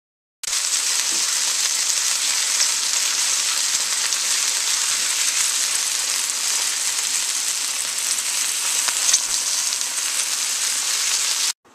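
Pork chops pan-frying, a dense, steady sizzle that starts abruptly about half a second in and cuts off suddenly near the end.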